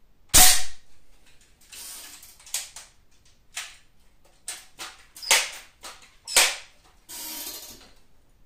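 Crosman M4-177 multi-pump air rifle firing, a sharp crack about half a second in, followed by a string of clicks, clacks and short rushing sounds of the action being worked and the gun pumped for the next shot, with another sharp clack a little after six seconds.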